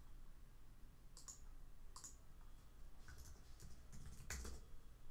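Faint, sparse clicks of a computer keyboard being typed on, about five keystrokes a second or so apart, the last one the loudest.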